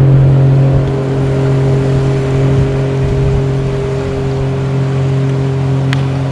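Steady hum of a bass boat's motor running, with a sharp click about six seconds in.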